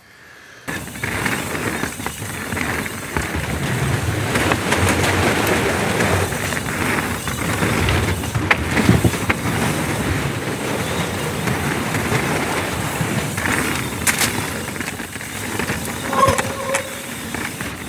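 Mountain bike rolling down a dirt flow trail: a steady rush of tyre and trail noise starting about a second in, with rattles and sharp knocks as it goes over bumps.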